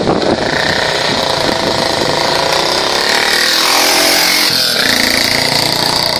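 Vintage motorcycle engine running hard as the bike climbs a steep hill under load. The note rises as it approaches and drops sharply as it passes close by, about four and a half seconds in.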